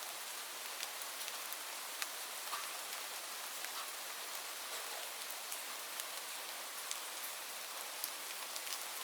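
Steady rain falling, a continuous even hiss with many scattered sharp drop ticks.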